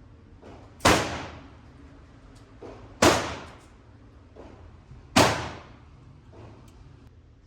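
Three pistol shots about two seconds apart, each cracking sharply and then ringing off in a lane's reverberation, with fainter knocks in between.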